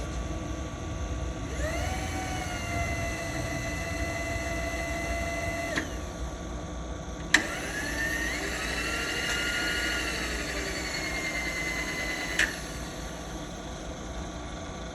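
Power knee lift motor of a Birmingham BPV-3949 vertical milling machine running twice, for about four seconds and then about five, each time with a steady whine that rises as it spins up. The second run starts and stops with a sharp click. A low steady hum runs underneath.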